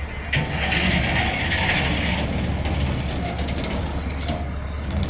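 Diesel engine of a passing steel cargo boat running, a steady low rumble with a dense mechanical rattle and clatter that sets in about a third of a second in.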